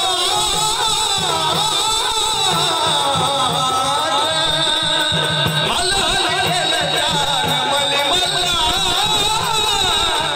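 Jagaran-gondhal devotional folk song: a singer's wavering melodic line over a steady, even drum beat and instrumental accompaniment.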